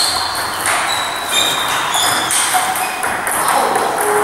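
Table tennis balls striking bats and tables in several rallies at once, a constant overlapping patter of short, high clicks echoing in a large sports hall.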